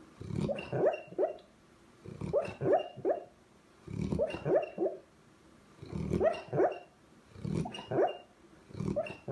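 A sleeping dog barking and whimpering in its sleep: short runs of two or three quick yips with a breath under them, repeating about every two seconds.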